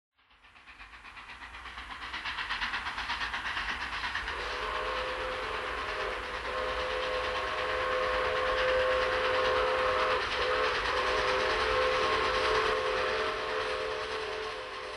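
Steam locomotive chuffing in a fast steady rhythm, fading in, then a long multi-note steam whistle blown from about four seconds in, broken twice for a moment, over the continuing chuff. It dies away near the end.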